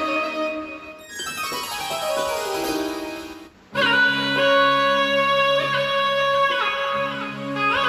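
Roland synthesizer keyboard playing an Indian sound-package patch: a pitched sound sweeps down over about two seconds and breaks off briefly, then held notes with downward and upward pitch bends, in the style of a bowed Indian string instrument.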